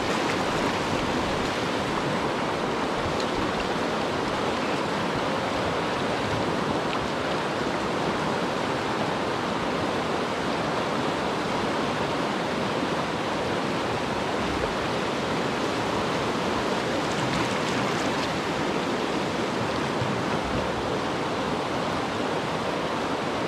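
Whitewater rapid rushing steadily over rock ledges, heard close up from a kayak in the current.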